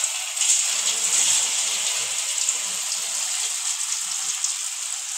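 Masala-coated anchovies deep-frying in hot oil: a steady, bright sizzling hiss.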